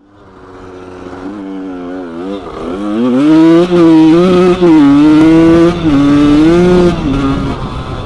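Suzuki RM 80/85 small two-stroke motocross bike engine being ridden hard, revving up and down; it fades in at the start and gets loudest midway, with a few short dips in the engine note.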